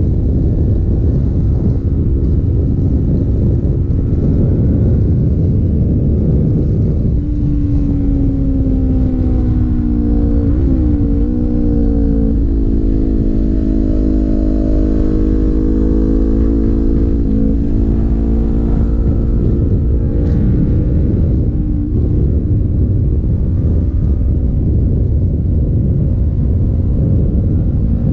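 A sport motorcycle's engine running at road speed under heavy wind rumble on the rider's microphone. The engine pitch falls and changes in steps several times as the bike slows for the curves.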